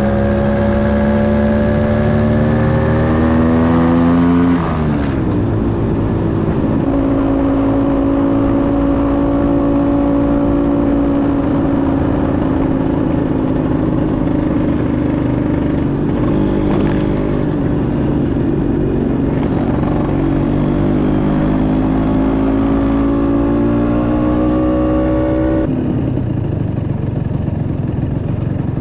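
Scooter engine pulling under acceleration: its pitch climbs for about four and a half seconds, drops sharply at a gear change, runs fairly steady, then climbs again and drops at another shift near the end. A steady rush of wind and road noise runs underneath.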